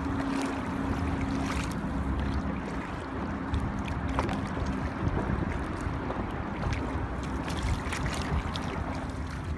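Kayak on a river under way: a steady rush of water and wind on the microphone, with small scattered clicks. A low steady hum fades out about three seconds in and comes back faintly later.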